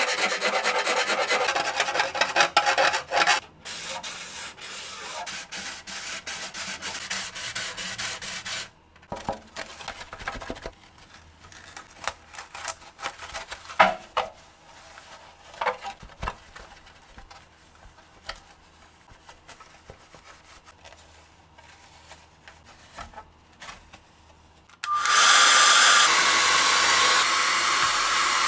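Hand filing and sanding of an RC truck body. It opens with fast rasping file strokes, then steadier, quieter sanding strokes, then only occasional light scrapes and taps. About 25 seconds in, a loud steady blower noise starts and keeps running.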